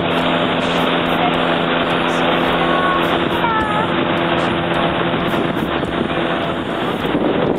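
Outboard motor of a wooden river longboat running steadily at speed, with water rushing past the hull. The motor's hum fades under the rush of water and wind near the end.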